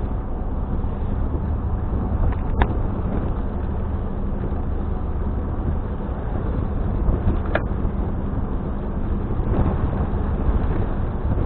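Steady low engine rumble of a car ferry under way, heard from inside a vehicle parked on its deck. Two sharp clicks stand out, about two and a half seconds in and again some five seconds later.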